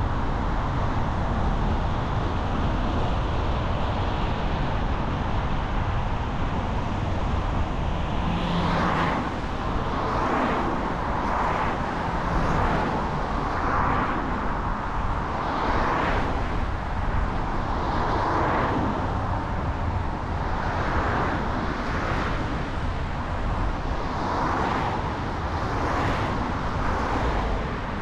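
Steady road and engine rumble of a car being driven. From about eight seconds in, a run of hissing swells comes and goes every second or two over the rumble.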